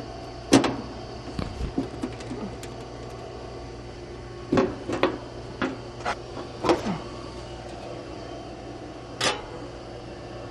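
Access panel of an outdoor air-conditioner condenser unit being unscrewed with a nut driver and lifted off. Scattered clicks and light sheet-metal knocks: one about half a second in, several in quick succession around the middle, and one more near the end.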